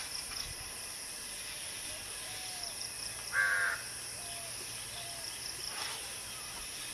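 A single harsh crow caw about three and a half seconds in, over a steady high-pitched insect drone and a few faint short bird chirps.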